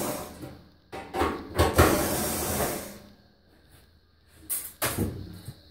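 Rustling and knocking of dryer parts being handled: a noisy spell about one to three seconds in, then a couple of shorter knocks near the end.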